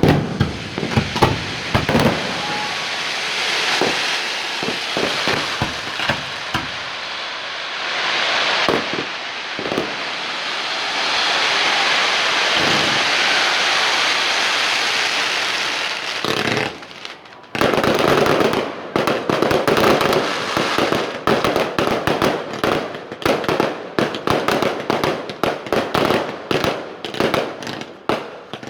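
Fireworks going off: a long stretch of dense crackling with scattered bangs, a short lull about seventeen seconds in, then rapid strings of sharp cracks and bangs.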